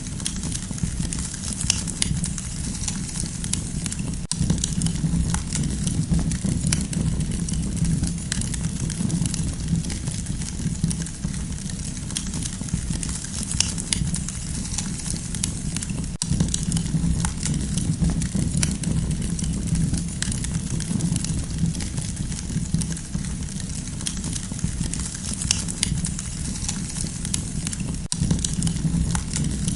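Campfire crackling, with frequent small sharp pops and snaps over a steady low rumble.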